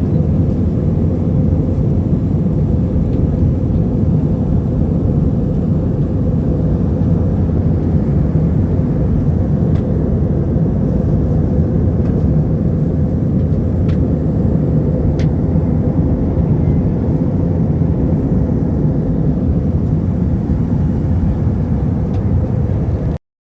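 Airliner cabin noise: a steady, loud low rumble of the jet engines and airflow heard from inside the passenger cabin, with a few faint clicks. It cuts off suddenly near the end.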